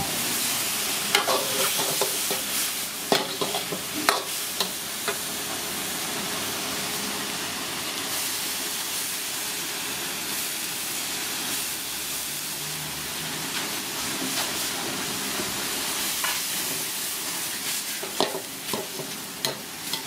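Stir-frying in a steel wok: fish pieces and vegetables sizzle steadily while a metal ladle scrapes and clanks against the pan. The clanks come thickest in the first few seconds and again near the end.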